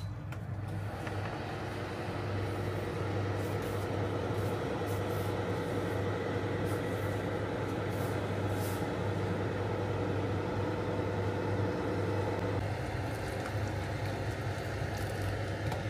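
Electric kitchen appliances running: a steady electrical hum under an even rushing noise, with a few light clicks in the first half. Part of the rushing stops about three-quarters of the way through.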